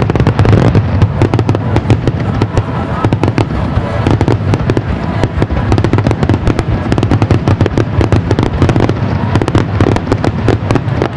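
Fireworks display in a rapid barrage: many bangs and crackles a second, with no break, over a continuous low rumble.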